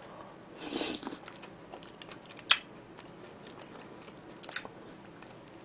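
A person chewing a mouthful of tteokbokki (rice cakes in spicy broth) close to the microphone, with soft wet mouth noises, a brief breathy swell about a second in and two sharp clicks later on.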